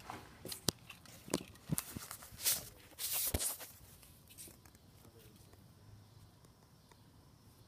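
Footsteps with scattered knocks and clicks, and a brief rustle about three seconds in, then quiet room tone for the second half.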